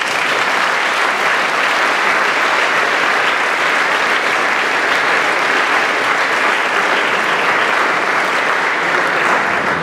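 Audience applauding, a steady sustained clapping.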